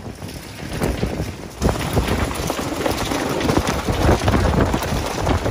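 Strong, gusty cyclone wind buffeting the microphone and blowing through the trees, getting louder about a second and a half in.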